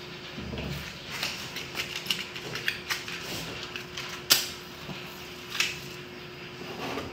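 Scattered clicks and light knocks of hands handling things at a gas stove, with a sharp click about four seconds in and another just over a second later.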